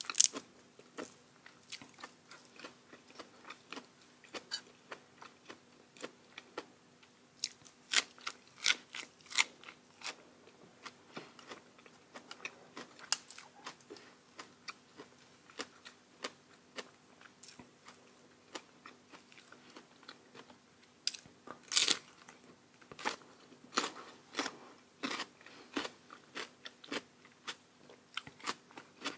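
Close-miked mukbang eating of raw oysters and crisp vegetables: a steady run of wet chewing and sharp crunchy bites, coming in louder clusters about a third of the way in and again about three-quarters through, over a faint steady hum.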